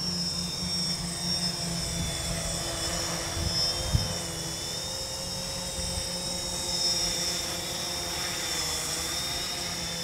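Four brushless motors and propellers of an XAircraft X650 quadcopter in flight: a steady whine of several tones that drift slightly up and down as the flight controller trims the motors. A brief thump about four seconds in.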